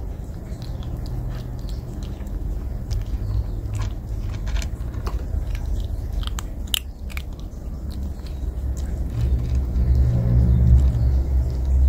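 A kitten crunching dry kibble: irregular small crunches and clicks as it chews. Beneath it runs a steady low rumble that grows louder about nine seconds in.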